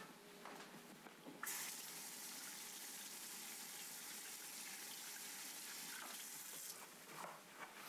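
Kitchen sink tap running faintly while fingertips are rinsed under it. The water comes on sharply about a second and a half in and is shut off about a second before the end.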